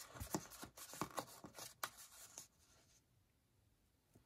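Paper being handled by hand: a quick run of soft rustles and light taps that stops about two and a half seconds in, leaving near silence.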